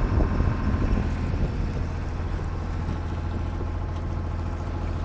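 A sailboat's inboard engine running steadily while motoring, a constant even hum.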